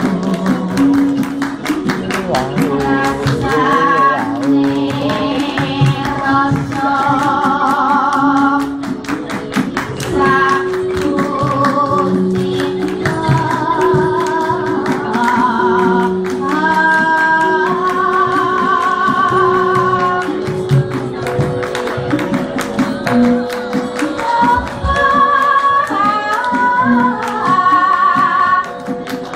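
Javanese palaran singing with gamelan: a single voice sings long held notes with a wide vibrato over struck bronze gamelan keys and drum strokes.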